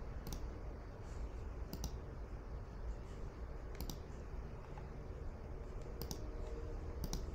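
Computer mouse clicks: about five short, sharp clicks a second or two apart, over a low steady hum.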